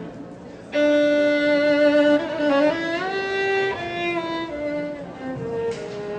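Solo violin playing a slow melody. After a brief quiet moment, a loud held note comes in just under a second in, then the line glides upward and steps back down through several sustained notes.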